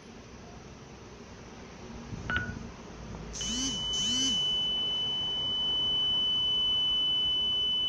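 Home security alarm panel: a keypad press with a short beep about two seconds in, then two quick swooping chirps and a steady high-pitched alarm tone that starts about halfway through and keeps sounding. This is the panel's medical emergency alarm being triggered in a test, with no spoken announcement yet.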